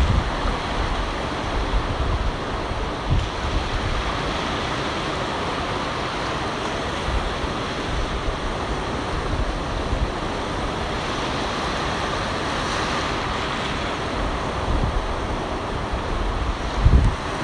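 Ocean surf breaking and washing up the beach, a steady rushing hiss, with wind buffeting the microphone in low rumbles that are heaviest near the end.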